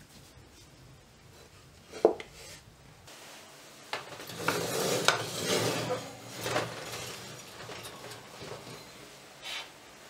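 Metal loaf tins clattering and scraping against a wire oven rack as baked loaves are lifted out. There is a sharp knock about two seconds in, a busy stretch of clatter in the middle, and one more knock near the end.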